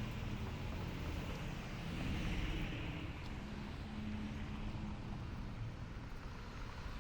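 City street ambience: a steady low rumble of traffic, with a passing vehicle swelling louder about two seconds in.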